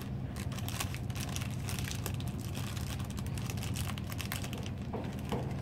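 Plastic snack packet crinkling and crackling in irregular bursts as it is handled and pulled open, over a steady low hum.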